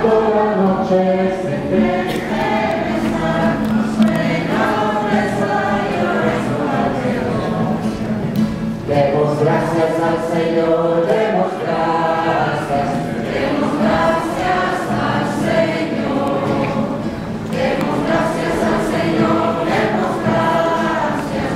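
Choir singing a hymn, many voices together in phrases a few seconds long.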